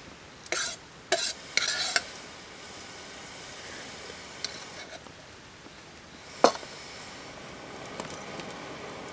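Oil sizzling steadily as karaage (Japanese fried chicken) deep-fries. Three short bursts of clatter and scraping come in the first two seconds, and a sharp clink about six and a half seconds in.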